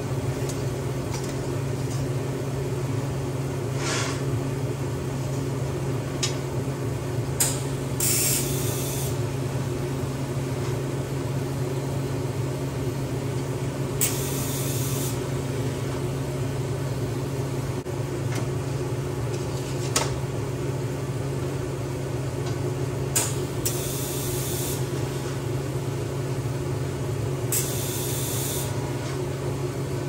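Steady machine hum with four separate high-pitched hissing bursts of about a second each and a few sharp clicks.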